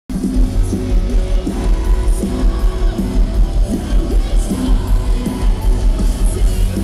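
Live post-hardcore band playing through a large concert PA, heard from within the crowd: loud and bass-heavy, with a steady pounding beat.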